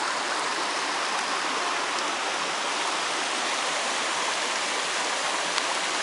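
Small waterfall pouring into a rock pool: a steady, even rush of falling and splashing water. The flow is low, just trickling along in the dry season.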